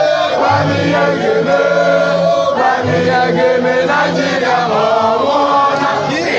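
A group of people singing a chant together in unison, with long held notes.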